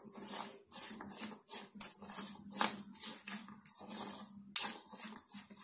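Plastic spoon stirring boiled chickpeas with chopped onion, tomato and lemon juice in a stainless steel bowl: irregular wet scraping and squishing strokes, about two a second.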